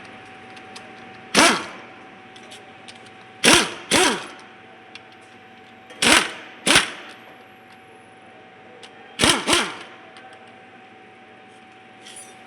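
Hammer blows on metal while a truck gearbox is being dismantled: seven sharp strikes, one and then three pairs, each ringing briefly. A faint steady whine runs underneath.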